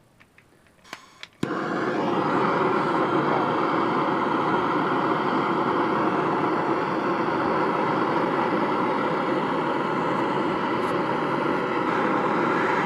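MAP gas torch: a few sharp clicks, then the flame lights about a second and a half in and burns with a loud, steady hiss. It is heating a rust-seized head bolt until it glows red.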